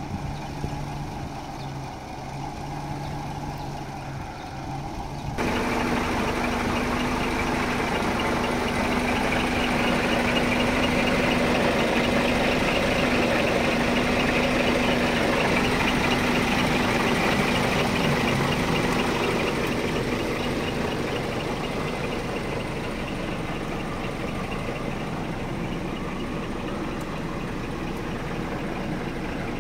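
Scania R 480 truck's diesel engine idling steadily. About five seconds in, the sound steps up suddenly to a louder, steadier hum, then eases off a little after about twenty seconds.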